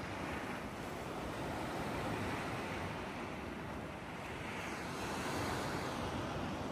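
Mediterranean sea surf washing below the shore, a steady rushing that swells twice.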